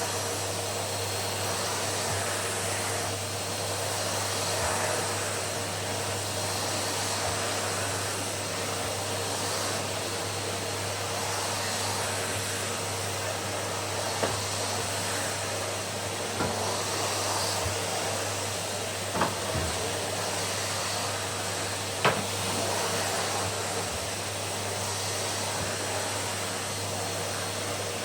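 Numatic tub vacuum cleaner running steadily while vacuuming, with a few sharp clicks about halfway through.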